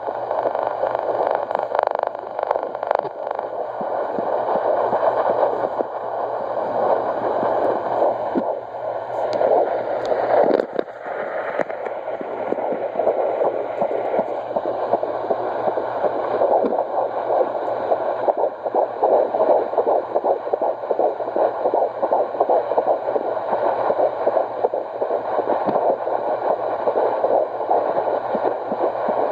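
Home fetal Doppler monitor's speaker playing a 13-week fetal heartbeat as a steady run of noisy, whooshing pulses.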